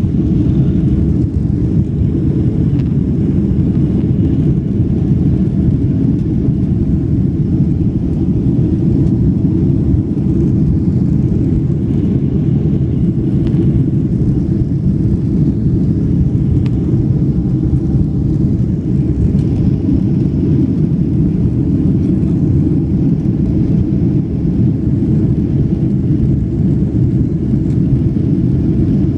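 Boeing 767-300ER's Pratt & Whitney turbofan engines at takeoff thrust, heard from inside the passenger cabin as a steady low rumble through liftoff and the initial climb.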